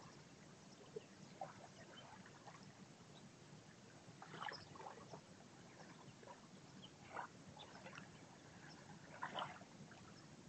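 Near silence with a few faint, soft laps of small waves at the shoreline, the clearest about four and a half, seven and nine seconds in.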